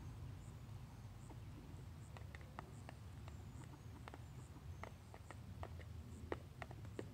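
Faint, irregular taps and clicks of chickens pecking feed from a small plastic dish on the grass, a few a second, over a low steady rumble.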